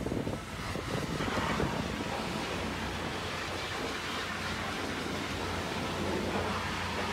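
High-pressure washer jet hissing and spattering against the steel side of a muddy dump truck's tipper body, steady throughout, with a low hum joining underneath about three seconds in.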